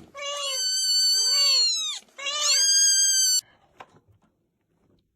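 A cat meowing twice in long, drawn-out calls, each over a second long, the pitch bending as it goes.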